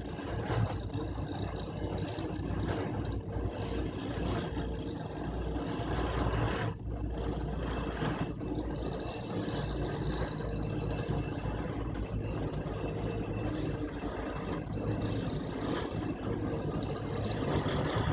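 Plasser 09-16 Dyna-CAT railway track tamping machine at work, its power unit and tamping units running as a steady mechanical noise with a constant hum, dipping briefly a few times.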